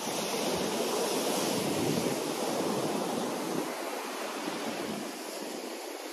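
Rough ocean surf breaking and washing up a sandy beach, a steady rush that swells for the first few seconds and then eases. Wind buffets the microphone with a low rumble.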